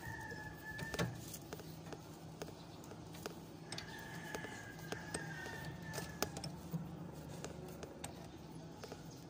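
Scattered light metallic clicks and taps of a hand-held socket tool working at the steel drag link joint of an Isuzu Elf truck's front steering.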